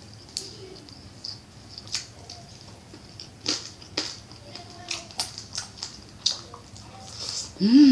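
Close-up eating sounds: irregular crisp crunches, wet mouth clicks and lip smacks as pieces of fried quail are chewed. Near the end comes a short hum that rises and falls in pitch.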